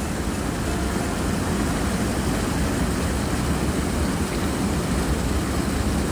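Small waterfall pouring into a pool: a steady rush of falling, churning water.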